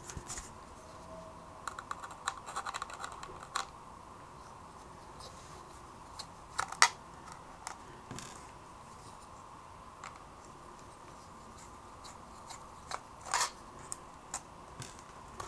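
Small clicks, ticks and scrapes of a screwdriver and fingers working on the casing of a Sony Walkman cassette player. There is a quick run of ticks about two seconds in, then scattered single clicks.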